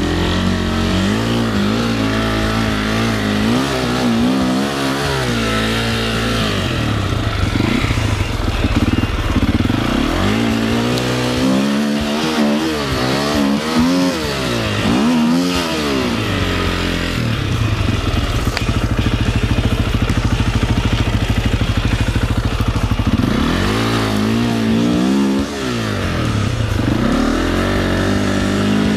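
Enduro motorcycle engine revving up and down in repeated surges as the bike is worked up a rocky trail, with a steadier stretch of running in the middle.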